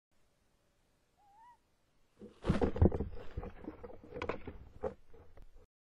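Tawny owl scrabbling into a wooden nest box: a dense run of knocks, thumps and scraping of claws and wings on the wood as it hauls a large bird prey through the entrance hole. A faint, short wavering call comes about a second in, and the noise stops abruptly near the end.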